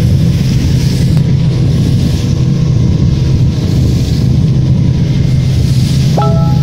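Small motorboat's engine running steadily under way, a constant low hum with wind and water noise over it. A brief higher tone sounds near the end.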